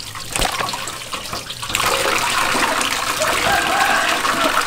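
Running water splashing, growing louder and steadier about two seconds in.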